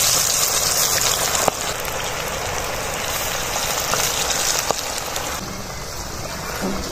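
Hot oil sizzling hard in an aluminium pot as handfuls of potato-and-spinach pakora batter are dropped in to deep-fry. The sizzle eases about five seconds in, with a couple of faint clicks.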